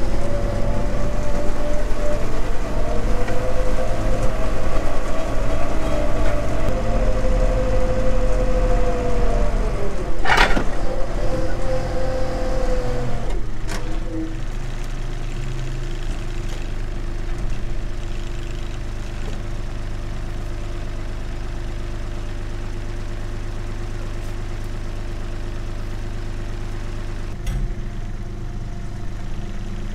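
Tractor diesel engine running, its speed shifting up and down over the first dozen seconds, then dropping to a steady idle. A short sharp noise comes about ten seconds in.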